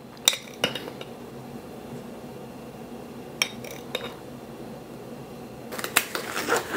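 A metal spoon clinking against a glass spice jar, a few separate taps, then a run of crackling and snapping near the end as disposable nitrile gloves are pulled on, over a faint steady hum.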